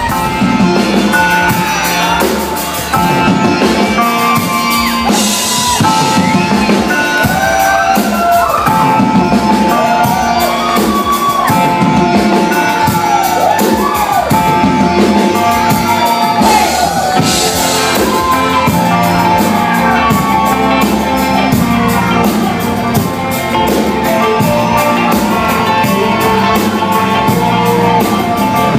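Rock band playing: a steady drum-kit beat under electric guitars and singing.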